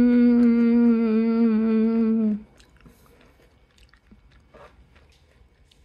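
A person's long closed-mouth "mmm" hum while tasting peanut brittle, held for about two seconds with the pitch sinking slightly, then cutting off; faint chewing follows. The hum is an approving reaction to the taste.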